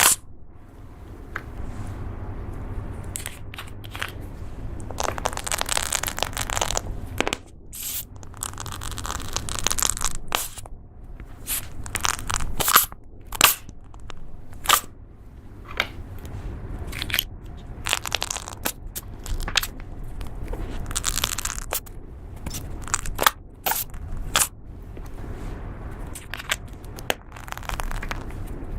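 Slime being squeezed and stretched by hand, crackling and popping with many sharp clicks and short crunchy patches.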